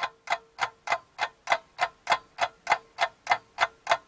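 A clock ticking steadily, about three ticks a second.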